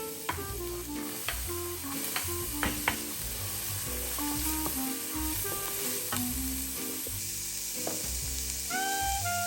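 Food sizzling in a hot frying pan, a steady hiss with a few sharp clicks of a utensil against the pan.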